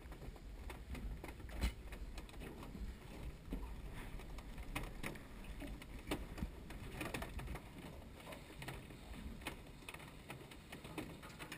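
Small waves lapping and slapping against an aluminium boat's hull, with a low rumble of wind on the microphone. Scattered light knocks and clicks come at irregular intervals.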